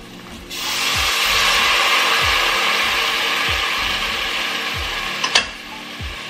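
Tomato sauce hitting a hot pan of fried onions and spices, sizzling loudly as it goes in, then slowly easing off. There is a brief click near the end.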